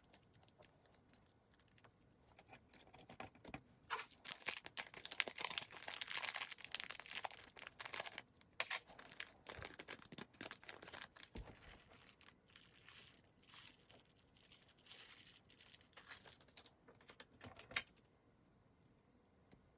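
Soft clay slime being squished and kneaded by hand, giving a run of small sticky clicks and crackles. They come thickest about a quarter of the way in, thin out into scattered clicks, and stop shortly before the end.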